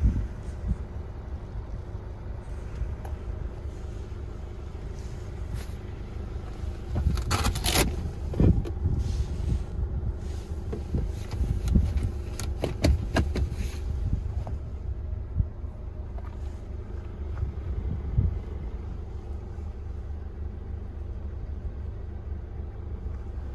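Steady low rumble of an idling car engine, with scattered clicks and knocks, loudest about seven to eight seconds in and again around twelve to thirteen seconds.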